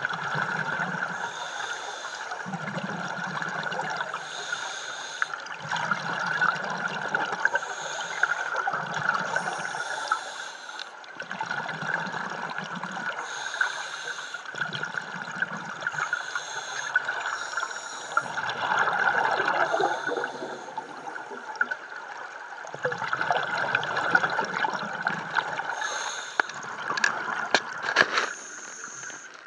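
Scuba diver breathing through a regulator, heard underwater: a hissing inhale alternating with a low rumble of exhaled bubbles every couple of seconds. A few sharp clicks near the end.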